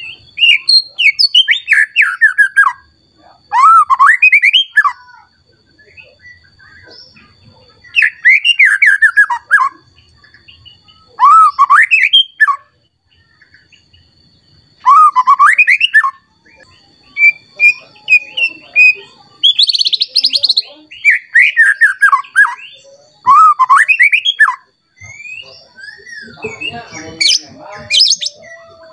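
Male white-rumped shama singing in agitated full song: loud phrases of rapid, sweeping whistled and chirping notes, each a second or two long, repeated after short pauses about ten times. Near the end a brief rattling clatter mixes in.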